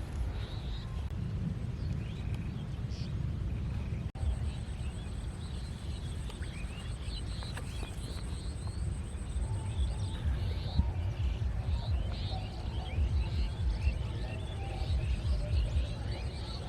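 Open-air ambience: a steady low rumbling noise with many short high chirps, which grow denser in the second half.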